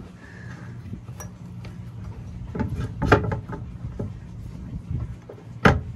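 Metal parts of a catamaran's steering linkage clinking and knocking as they are handled and fitted onto the car on its track, with the loudest knocks about three seconds in and near the end. A low steady hum runs underneath.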